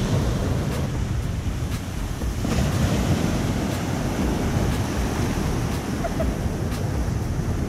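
Ocean surf breaking and washing up the beach, a steady rushing wash, with wind buffeting the microphone.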